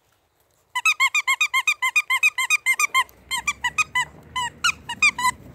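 A squeaky dog toy squeezed over and over, giving a fast, loud run of high squeaks, about eight a second. After about two seconds the squeaks turn sparser and more irregular.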